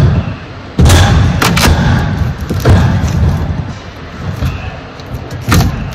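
Cardboard boxes being handled and shoved by hand, giving a series of dull thumps with scuffing between them: several in the first three seconds and another near the end.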